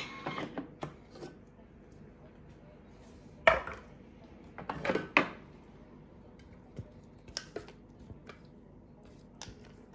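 Knocks and clatter of a Thermomix's stainless steel mixing bowl being handled and lifted out of the machine: one sharp knock about three and a half seconds in, a few more around five seconds, then a few small clicks.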